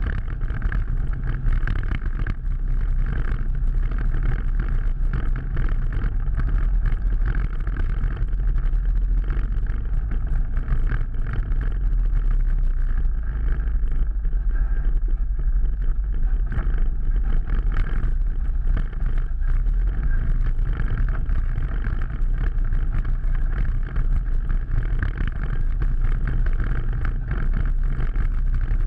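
Off-road vehicle's engine running steadily under load, heard from on board, as it drives a muddy trail and churns up a shallow, rocky creek bed.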